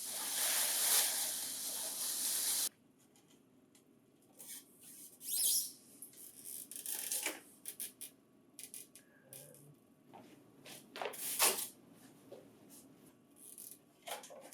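A steady hiss cuts off suddenly about three seconds in. After it come scattered short rustles, scrapes and taps of packing material being handled as the booklet finisher is unpacked.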